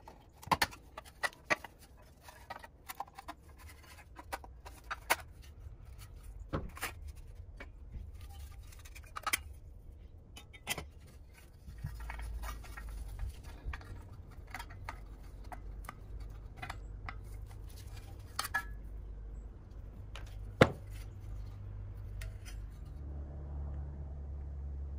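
Scattered light clinks, taps and scrapes of old pressed-steel toy truck parts being handled and set down on a wooden workbench, with one sharper knock about two-thirds of the way through. A low steady hum comes in about halfway.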